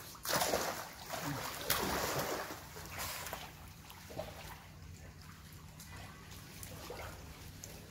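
Crocodiles splashing in a shallow pond, a few loud splashes in the first three seconds, then quieter sloshing. A steady low hum runs underneath.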